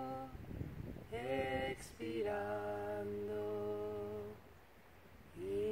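Soft, slow background music of long held vocal notes, with a brief lull near the end. A word of calm spoken guidance about a second in.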